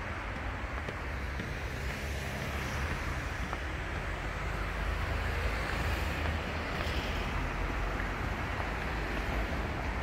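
Steady rumble of road traffic, with wind buffeting the microphone.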